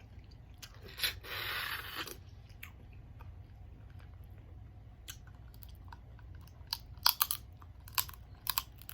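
A person eating a seafood boil close to the microphone: a hissing slurp about a second in, then scattered sharp clicks and crunches of biting and chewing, with a quick cluster of them near seven seconds.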